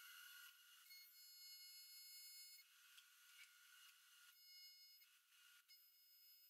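Faint high-pitched buzz of an AC TIG welding arc on aluminum, coming and going in four stretches of up to about two seconds as the arc is struck and broken.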